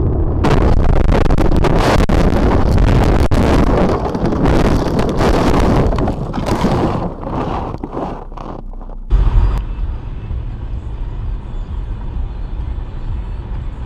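Vehicle noise with wind on the microphone: a loud rushing noise starts about half a second in and thins out after about six seconds. Around nine seconds in it cuts abruptly to a quieter, steady low rumble.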